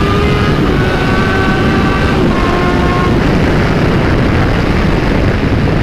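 Yamaha YZF-R6 sport bike's inline-four engine running as the motorcycle is ridden; its pitch eases down slightly over the first three seconds, then holds steady.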